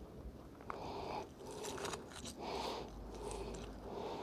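Rubber-gloved hands scraping and pulling rusty, mud-caked scrap off a fishing magnet, a series of rustling scrapes with a few light clicks of metal.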